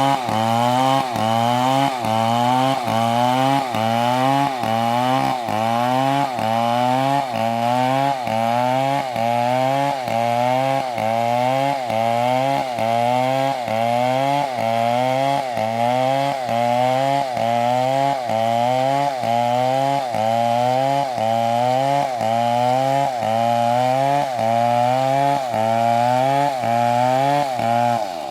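Chainsaw running at high revs while cutting wood, its engine pitch dipping and recovering in a steady, even rhythm as the chain bites under load. It drops off suddenly at the end.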